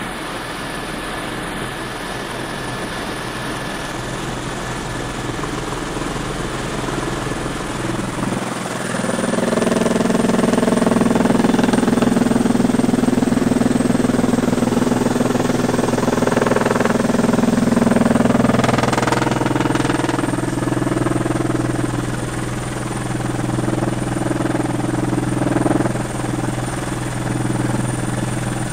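Helicopter rotor and engine noise heard from inside the cabin, a steady drone that grows louder about a third of the way in, with a stack of humming tones that shift in pitch a couple of times.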